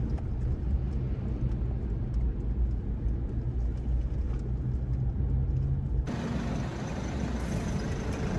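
Car driving, with a steady low rumble of road and engine noise. About six seconds in it cuts abruptly to a brighter, hissy noise.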